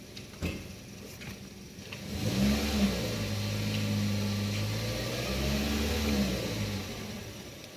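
Toyota Vios engine, misfiring on cylinder number 2 and idling rough, revved up about two seconds in, held at raised speed for several seconds, then let fall back toward idle.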